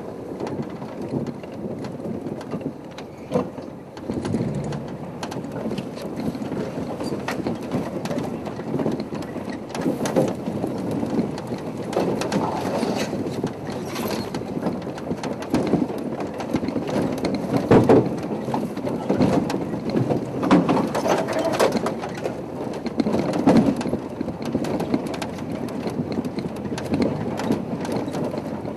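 Safari vehicle running and moving over rough ground, with a continuous rumbling rattle and scattered knocks and crackles throughout.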